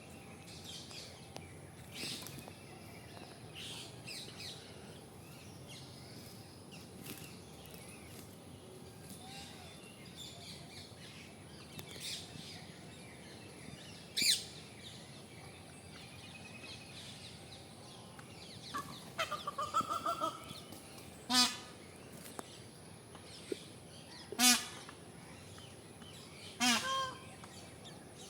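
Peafowl calling: several loud, short, honking calls, one about halfway through and three more spaced a few seconds apart in the last third, with a quick run of shorter calls just before them, over faint chirping of small birds.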